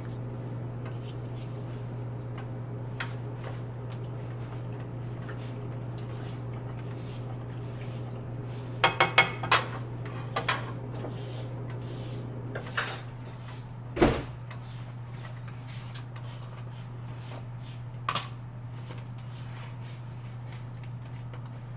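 Kitchen utensils and dishes being handled: a quick run of metal clinks about nine seconds in, a few lighter clicks, and one loud knock about fourteen seconds in, over a steady low hum.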